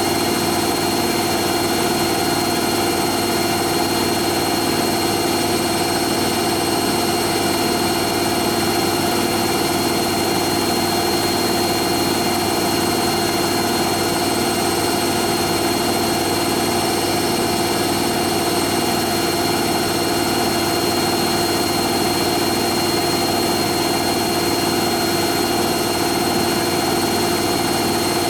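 Hoover Nextra HNL71463D washing machine in its fast final spin: a steady high-speed drum hum and motor whine that holds the same pitch and level throughout.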